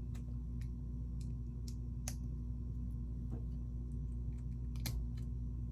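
Plastic Lego pieces clicking and tapping as they are handled and pressed together: a dozen or so short, scattered clicks over a steady low hum.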